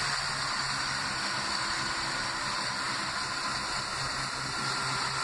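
Class 170 Turbostar diesel multiple unit's underfloor diesel engines running as the train pulls away from the platform: a steady low engine note under a constant hiss.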